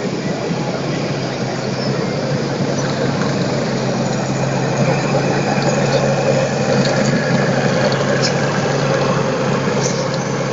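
Steady low engine-like drone over a loud, even wash of hall noise.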